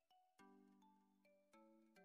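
Faint background music: short ringing notes, a few a second, over held low chords that change about once a second.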